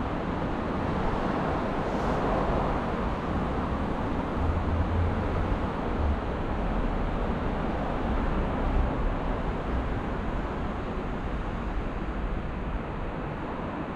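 City street ambience: steady road-traffic noise with a low rumble that swells about four to six seconds in.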